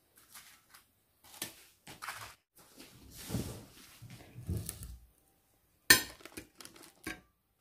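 Plate and tableware handling: soft knocks and rustling as fried breaded sardines are moved onto a paper-lined plate, then a sharp clink about six seconds in, followed by a few lighter clicks, as a small glass bowl of sauce is set down beside them.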